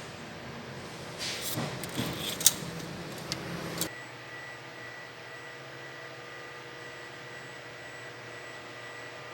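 Engine oil dipstick being drawn from its tube and handled, with scraping, rattling and clicks and one sharp click about halfway. After that, a faint steady hum with the engine off.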